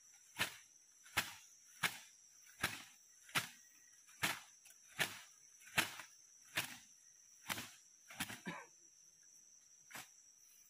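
Rhythmic striking strokes, about one every three-quarters of a second, as a man swings down repeatedly at the earth and debris at the end of a log trench; the strokes stop after about eight and a half seconds, with one more near the end. A steady high insect drone runs underneath.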